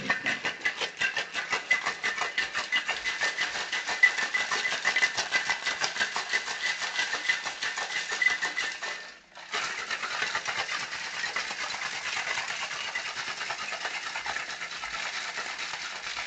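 Ice cubes rattling hard in a metal cocktail shaker being shaken rapidly to mix and chill a cocktail. The rattle is fast and even, with a brief break about nine seconds in before the shaking resumes.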